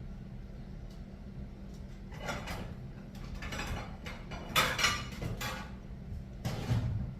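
Dishes knocking and a kitchen cupboard being opened and shut in a handful of short clattering bursts, the sharpest two in quick succession a little past halfway, over a steady low hum.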